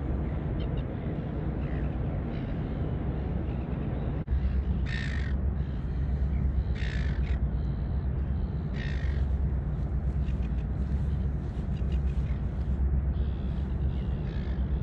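A crow-like bird cawing three times, each harsh call about half a second long and about two seconds apart, over a steady low rumble.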